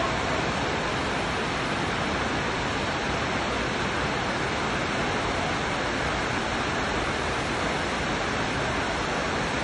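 Heavy rain falling, a steady even hiss of downpour.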